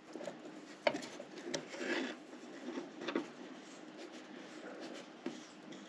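Quiet handling sounds as a nut and small cover plate are worked off a diesel fuel injection pump by hand: a few small sharp clicks and light scraping.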